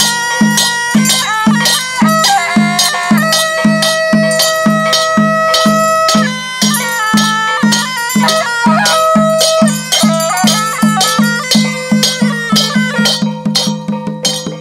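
Red Dao ritual music: a reedy double-reed shawm playing a melody of long held notes over a steady drum beat with clashes of small cymbals. The beat quickens over the last few seconds before the music stops.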